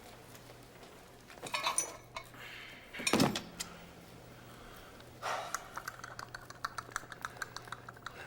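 Metallic clattering, then one loud clank, followed by a quick run of light clicks at about five a second.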